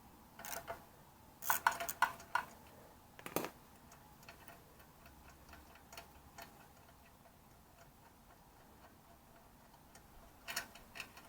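Faint metallic clicks of hand wrenches working a motorcycle exhaust bolt and nut as it is loosened. A few sharp clicks come in the first few seconds, light evenly spaced ticks run through the middle, and a cluster of clicks comes near the end.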